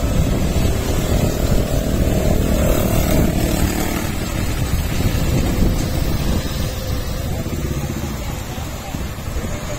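Laden mini truck's small engine pulling away and driving off, with road traffic running around it.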